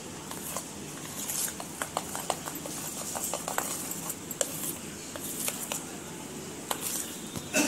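A spoon stirring thick biscuit-cake batter in a metal bowl: wet stirring with irregular light clicks and knocks of the spoon against the bowl. The batter has just been mixed with Eno fruit salt and water.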